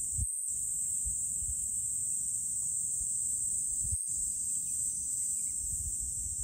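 Steady high-pitched drone of insects, with an uneven low rumble of wind on the microphone. The sound cuts out for a moment twice.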